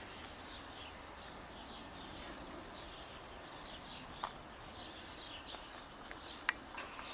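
Small birds chirping on and off over a low outdoor background hum, with two sharp clicks, one about four seconds in and a louder one near the end.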